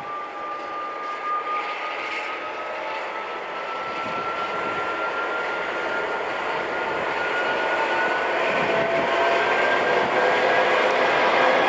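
Class 232 'Ludmilla' diesel locomotive with its Kolomna 5D49 V16 diesel engine working hard as it pulls a freight train away and nears, with a high whine that rises slowly in pitch. The sound grows steadily louder as the locomotive comes closer.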